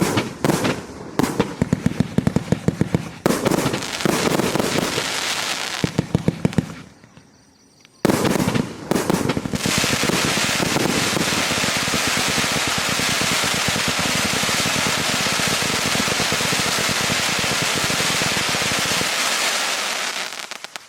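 Consumer firework going off: strings of sharp reports, a short lull, then a long, dense stretch of rapid crackling lasting about ten seconds that fades out near the end.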